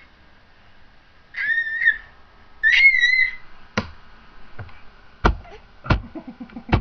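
A baby gives two high-pitched squeals, one after the other, in the first half. Then come four sharp thumps, one every second or so.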